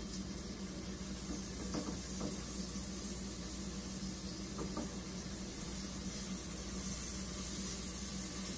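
Liver frying in hot oil, a steady sizzle, with a few light taps as floured pieces are handled at the counter.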